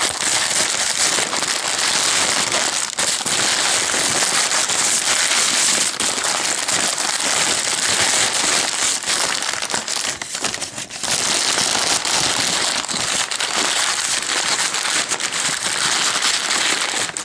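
Packing material being pulled apart and handled by hand, crinkling and crackling almost without pause, easing off briefly about ten seconds in.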